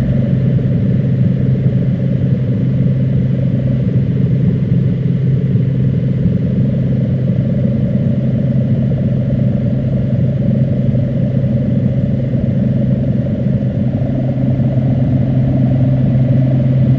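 A loud, steady low drone with a noisy rumble, unchanging throughout.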